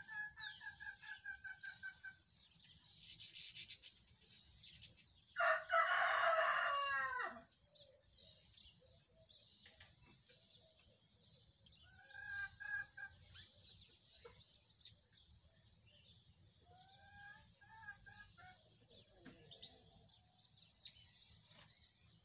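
A rooster crows once, loudly, about five and a half seconds in, the call falling away at its end. A quick run of clucking notes comes at the start and a few short clucks come later, over faint continuous high twittering of European goldfinches in the aviary.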